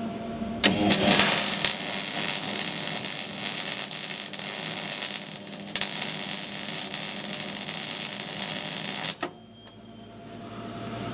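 MIG welding arc on a steel hull plate: a steady crackling run of about eight and a half seconds that starts sharply just after the start and cuts off suddenly near the end.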